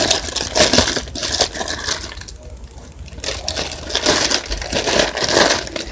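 Slime being squished and stretched by hand, giving irregular wet clicks and pops.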